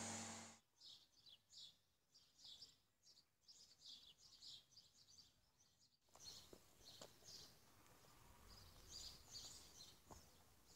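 Faint, repeated bird chirps over near silence. A steady motor hum with hiss cuts off about half a second in.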